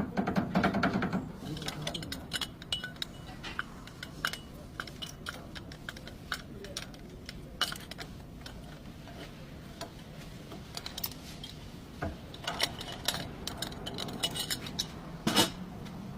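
Irregular light metallic clinks and clicks, like hand tools and steel parts knocking together during work on metal. The clinks are thicker near the start and again about three-quarters of the way through.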